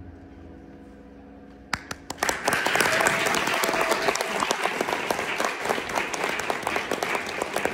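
Audience applause after a song ends: the last notes fade out, a few first claps come in just under two seconds in, and then dense, steady clapping follows.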